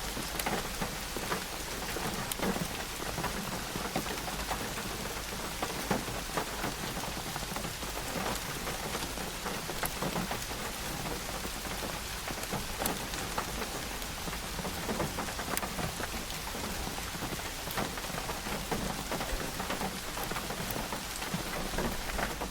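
Steady rain falling, a constant hiss with many sharp clicks of individual drops striking surfaces.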